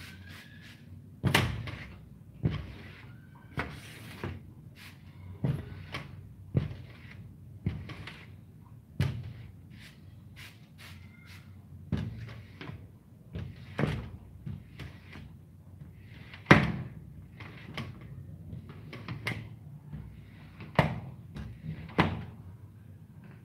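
A run of sharp knocks and thumps, roughly one every second or so, some louder than others; the loudest comes about two-thirds of the way through.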